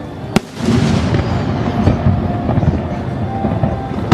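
Fireworks display: a sharp crack about half a second in, then a dense run of shell bursts booming and rumbling, with scattered smaller cracks.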